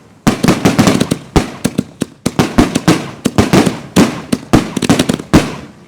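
Canister firework shells firing from linked mortar racks in a rapid volley: sharp launch thumps and shell breaks overlapping, several bangs a second with no gap.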